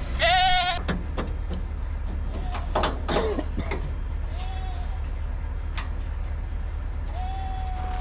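Goats bleating: a loud wavering bleat at the start, a short call about halfway through and a longer held call near the end, with a few sharp clicks in between.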